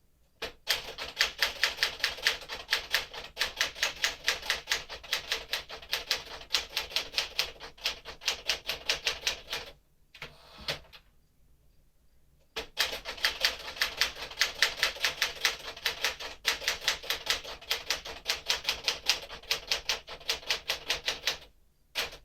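1958 Smith-Corona Clipper manual portable typewriter being typed on: quick runs of sharp keystroke clicks, broken by a pause of about two seconds near the middle.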